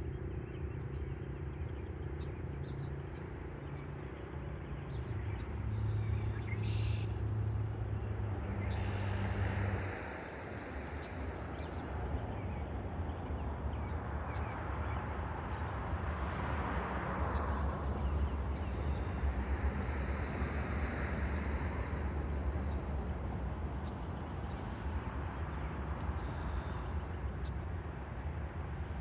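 Street traffic: vehicles pass by with engine and tyre noise, one engine's low hum cutting off about a third of the way in, and a few small bird chirps.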